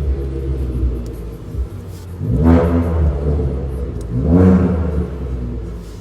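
Ford Fiesta's engine and exhaust idling, blipped twice: two short revs that rise and drop back to idle, one about two and a half seconds in and one a couple of seconds later.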